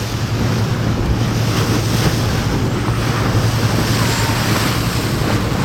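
Tour boat's engine droning steadily beneath the rush of water along the hull, with wind buffeting the microphone.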